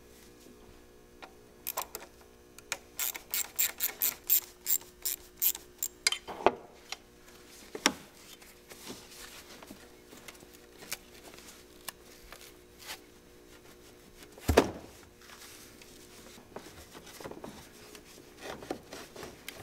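Ratchet and socket clicking, about four clicks a second for some four seconds, as the radiator hose clamps are loosened. Then a few scattered knocks of tools and parts being handled, the loudest about 14 seconds in.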